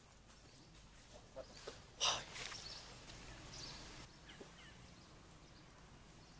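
Quiet outdoor ambience with one short, sharp animal call about two seconds in, followed by a few faint chirps.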